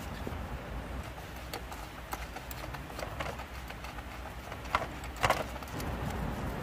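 Scattered light knocks and clicks over a low steady hum, with two sharper, louder clacks about five seconds in.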